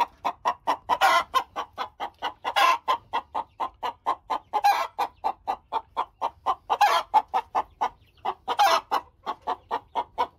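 White Plymouth Rock hen clucking in a quick, even run, about five clucks a second, broken five times by a louder, drawn-out squawk: the call of a hen getting ready to lay.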